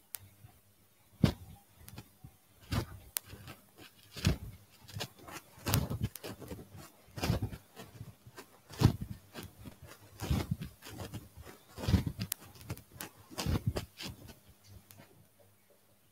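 Rhythmic slaps of loose hands striking the body as the arms swing with a turning waist, a strong slap about every second and a half with lighter pats between.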